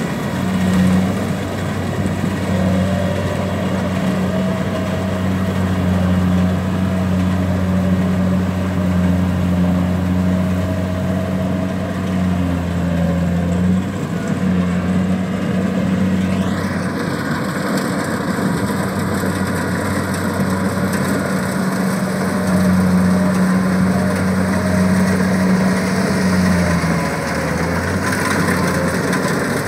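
Kubota combine harvester's diesel engine running steadily as it cuts and threshes rice, a continuous low drone.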